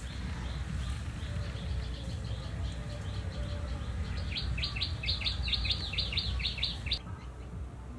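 Small bird chirping in quick repeated notes, about five a second, faint at first, then louder and denser from about four seconds in, and stopping abruptly about a second before the end, over a steady low rumble.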